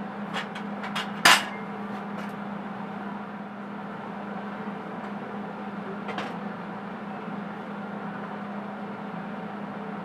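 A few sharp metal knocks and clanks, several close together at first with the loudest just over a second in and one more about six seconds in, over a steady low hum.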